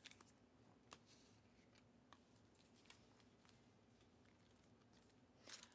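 Near silence with a few faint clicks and a brief rustle near the end, from trading cards being handled.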